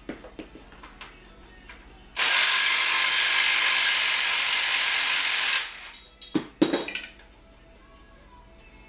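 Ryobi cordless impact wrench hammering steadily for about three and a half seconds, undoing a 14 mm nut on a transmission cradle, then a few sharp clicks and knocks of the socket and parts being handled.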